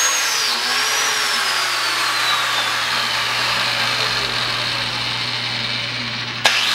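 Chicago Electric biscuit joiner running as it cuts a slot in the edge of a cedar board: a steady motor whine that slowly falls in pitch. Near the end the sound breaks off sharply with a click and the whine resumes at once.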